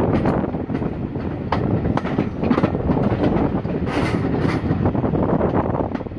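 Passenger coach wheels rumbling and clattering over rail joints and pointwork, with many short irregular clicks, heard from the window of the moving coach.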